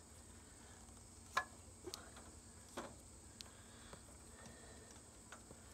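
Quiet handling sounds: a few scattered light clicks and taps, the sharpest about a second and a half in, as hands work at the oil filter on the mower's engine.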